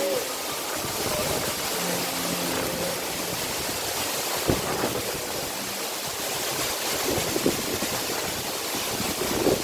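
Steady rush of a waterfall, an even hiss of falling water.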